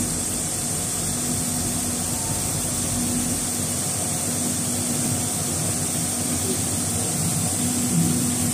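Steady drone of running machinery: a constant low hum under an even high-pitched hiss, with no change in speed.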